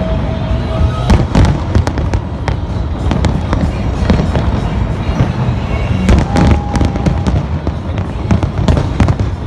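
Fireworks display going off: rapid cracks and bangs over a steady low rumble, densest about a second in and again around six to seven seconds.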